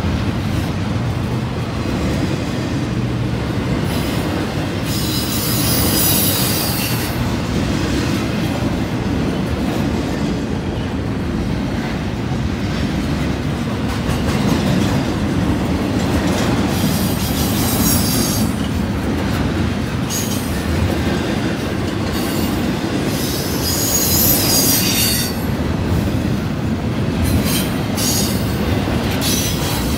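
Double-stack intermodal well cars rolling past: a steady rumble of steel wheels on rail, broken several times by a high screech of wheel squeal lasting a second or two.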